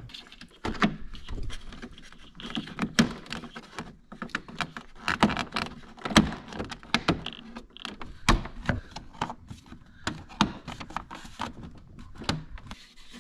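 Plastic fairing trim and a rubber boot of a Honda Goldwing GL1500 being handled and pressed into place: an irregular string of clicks, taps and knocks of plastic, with rustling between them.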